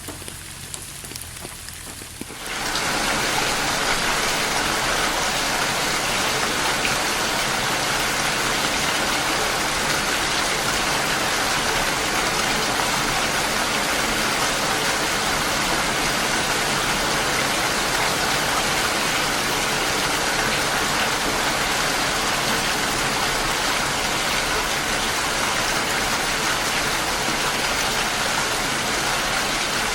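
Rain falling, a steady hiss; about two and a half seconds in it abruptly becomes much louder and denser, like a switch to a heavier downpour.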